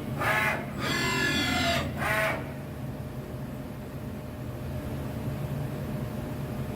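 Milltronics ML-16 CNC lathe running: three short motor whines in the first two and a half seconds, one shifting in pitch, then a steady low machine hum.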